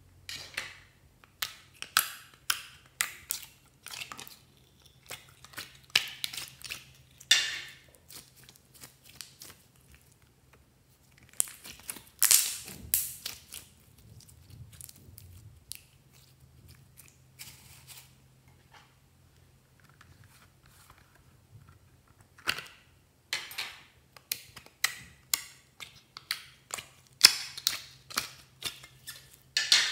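Glossy glitter slime being squeezed and stretched by hand, giving irregular wet clicks and pops as trapped air bursts out of it. The clicks come in runs, with a quieter stretch in the middle.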